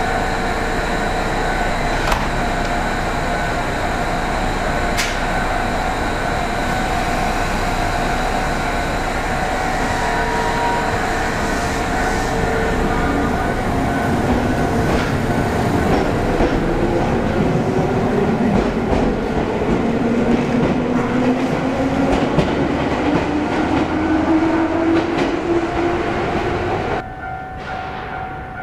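Electric commuter train pulling out of the platform and gathering speed past, a pitched motor whine rising steadily over its rumble. About 27 s in it gives way abruptly to a quieter, steadier hum.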